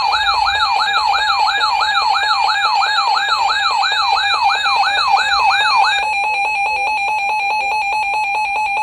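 Electronic alert siren heralding a severe thunderstorm warning: a steady tone under a rapid rising whoop that repeats nearly three times a second. About six seconds in the whoop stops and a fast-pulsing steady tone carries on.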